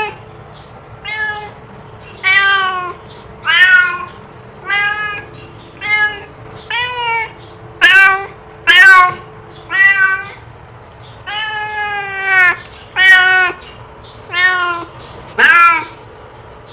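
Domestic cat meowing over and over, about a dozen separate meows roughly a second apart, with one longer drawn-out meow about two-thirds of the way through.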